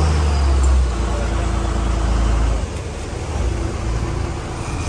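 Fishing boat's engine running under way, a low hum over rushing wind and water noise; the hum grows quieter about a second in and again near three seconds.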